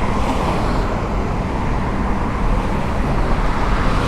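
Steady noise of travelling on a road: engine rumble and rushing road and wind noise, with no sudden events.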